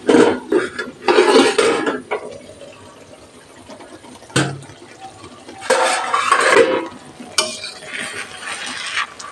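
Steel lid lifted off a metal kadai and set aside, then stirring in the pan: several short bouts of scraping and clattering, with a sharp clank about four seconds in and another near seven seconds.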